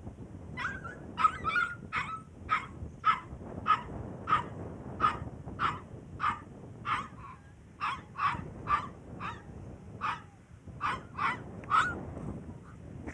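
A puppy yapping at a larger dog: a long run of short, high-pitched yips, about two a second.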